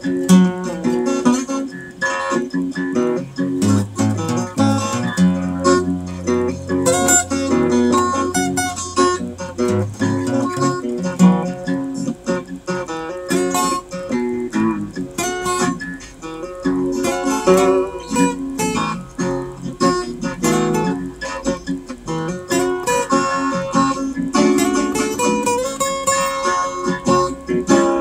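Acoustic guitar played as an instrumental, a steady run of picked notes and chords, with a held low bass note from about four to ten seconds in.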